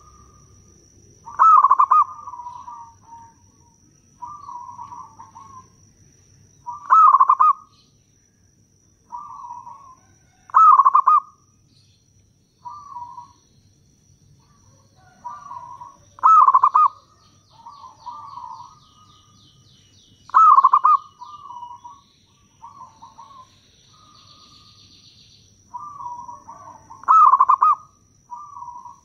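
Zebra dove of the local perkutut type cooing: six loud rolling phrases a few seconds apart, with softer, shorter coos between them.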